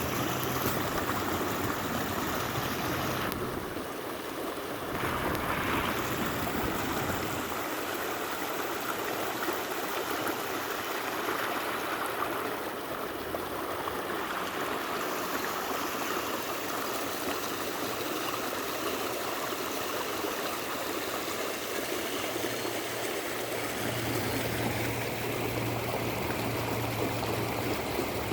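A stream of water flowing steadily, a continuous rushing and trickling with no break.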